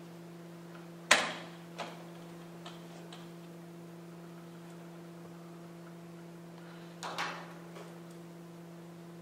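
Steady electrical hum with a handful of sharp knocks and taps: one loud knock about a second in, a few lighter taps over the next two seconds, and another cluster of knocks around seven seconds.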